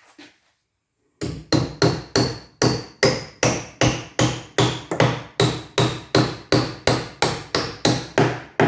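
Hammer tapping a copper rivet pin into a pre-drilled hole through timber, about three quick, even blows a second with a faint metallic ring, starting about a second in.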